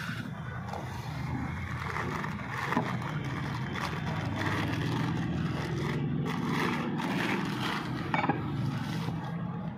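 Clear plastic packaging crinkling and rustling as brass diya parts are unwrapped and handled, with light scraping of metal on the countertop, over a steady low hum.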